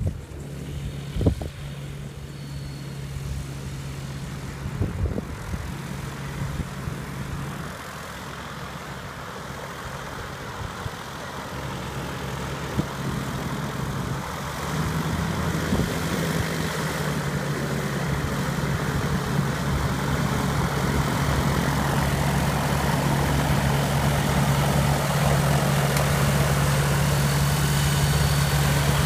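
MTO Sport autogyro's piston engine and pusher propeller running at low power while it taxis, a steady drone that steps up about halfway and grows louder as the machine comes close.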